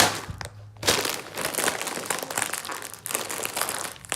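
Plastic snack wrapper crinkling and crackling as it is handled, with a sharp tap right at the start.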